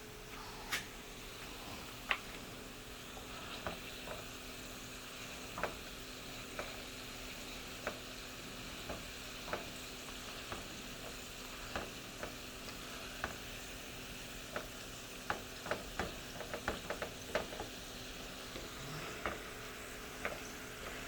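Frozen French fries frying in hot oil: a steady sizzle with irregular sharp pops and clicks, coming thickest a little past the middle.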